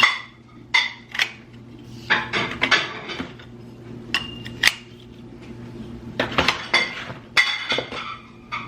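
A run of sharp, irregular clinks and clanks of hard objects knocking together, several ringing briefly with a metallic tone.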